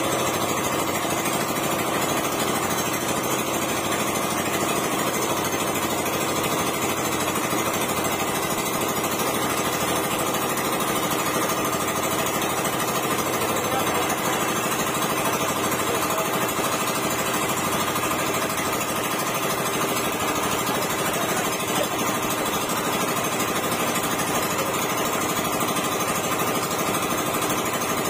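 Small engine on a bamboo outrigger fishing boat, running steadily at constant speed.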